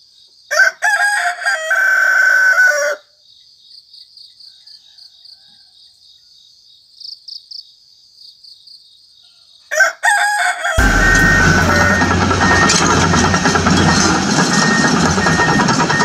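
A rooster crowing twice, a long crow near the start and a shorter one about ten seconds in. Then a loud, steady mechanical drone cuts in and keeps going.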